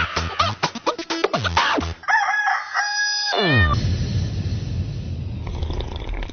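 Music ending, then a rooster crowing once about two seconds in: a held call that slides down in pitch at its end. A steady hiss follows.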